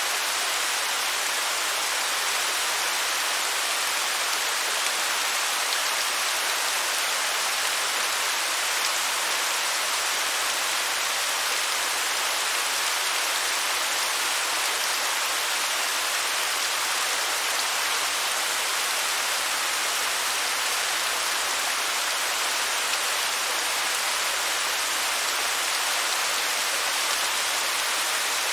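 Waterfall: the steady, unbroken hiss of falling water, bright and with little low rumble.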